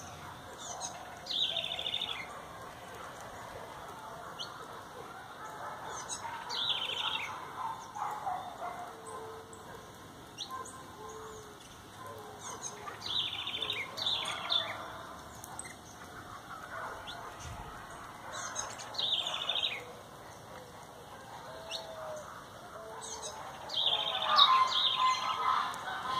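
Mixed wild songbirds at a feeder chirping. One bird repeats a short song phrase about every five to six seconds, with scattered soft low notes between.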